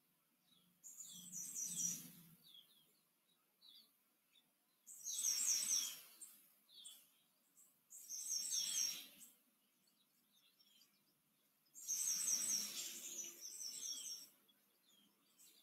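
Small birds chirping in four short bursts of quick, high notes, with faint single chirps between them.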